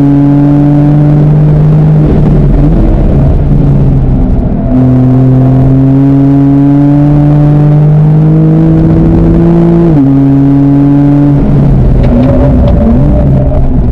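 Porsche 911 (991) Carrera S flat-six engine heard from inside the cabin at speed on track, its note climbing slowly under throttle. The pitch drops abruptly right at the start and again about ten seconds in, as at upshifts, and wavers unsteadily around three seconds in and again near the end, where it is off full throttle.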